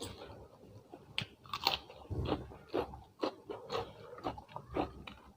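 A person chewing food with crisp, crunchy bites close to the microphone, about two chews a second.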